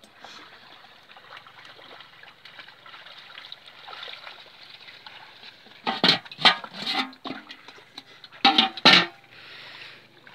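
Water sloshing and wet plants rustling as the lift net is worked. Then, about six seconds in, several loud clattering splashes at a metal catch pot covered with a steel bowl, in two bouts.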